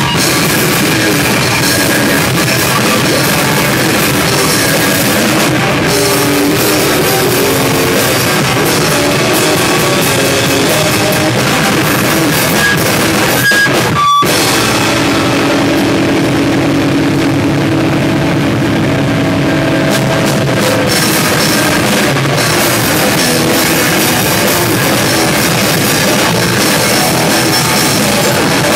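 A live heavy rock band playing loud, with distorted electric guitar and a drum kit. About halfway it breaks off for an instant. The cymbals then drop out for several seconds while the guitar carries on, before the full band comes back in.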